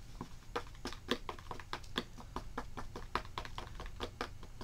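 Wooden paintbrush handle stirring shimmer powder into a glue medium in a small plastic tub, clicking and scraping against the tub's sides in a quick, uneven run of about four or five clicks a second.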